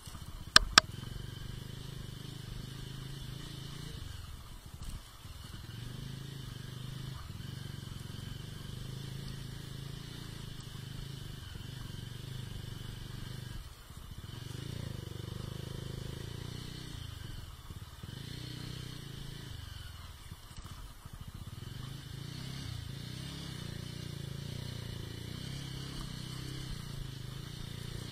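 Mahindra Mojo's single-cylinder engine running steadily at low speed on a rocky gravel track, its note dropping away several times as the throttle is eased off. Two sharp knocks about half a second in.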